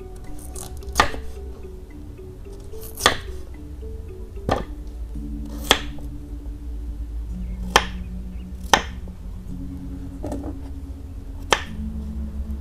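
Kitchen knife slicing through a peeled raw potato and knocking sharply on a wooden cutting board, about eight cuts every one to two seconds, over background music.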